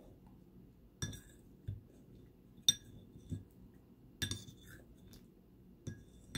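Metal fork clinking against a ceramic plate while cutting and scooping pie: about five separate sharp clinks, each with a short ring, the loudest about two and a half seconds in. Softer dull knocks come between the clinks.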